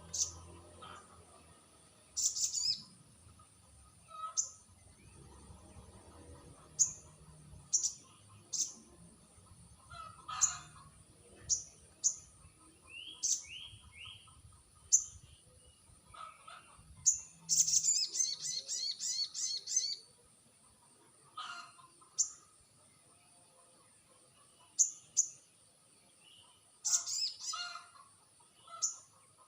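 Sogon bird calling: short, sharp, high chirps at irregular intervals, with a quick trilled run of notes about two-thirds of the way through.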